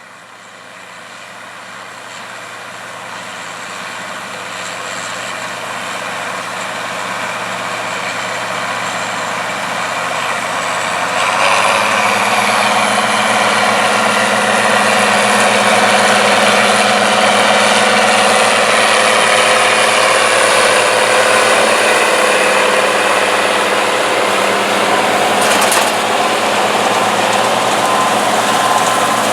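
Heavy harvest machinery running in a wheat field: the diesel engine and threshing noise of a combine harvester and its grain-cart tractor. It grows steadily louder as it approaches, then jumps up about eleven seconds in and stays loud and steady.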